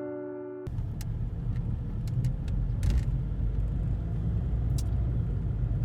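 Car driving, heard from inside: a steady low rumble of engine and road noise with a few small clicks and rattles. Piano music cuts off just under a second in.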